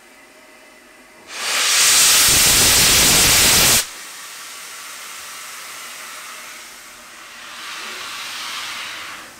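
Steam locomotive's cylinder drain cocks blowing off steam as the engine starts away. A loud hiss begins about a second in, lasts two to three seconds and cuts off sharply. A quieter hiss follows and swells again near the end.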